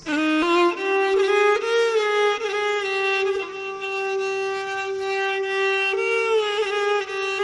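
Solo violin playing a slow melody: a few quick notes at the start, then long held notes.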